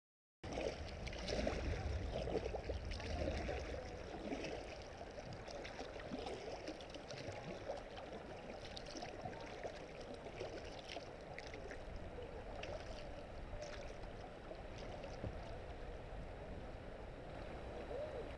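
Kayak paddle strokes dipping and splashing in flowing river water, with drips and small splashes close by and a low rumble underneath, a little louder for the first few seconds.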